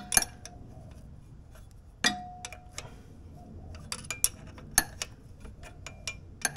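Metal hand tools (pliers and a spanner) clicking and clinking on a car's clutch cable adjuster while the adjuster rod is turned. Two sharper clinks ring briefly, one right at the start and one about two seconds in, and a run of quick ticks follows around four to five seconds in.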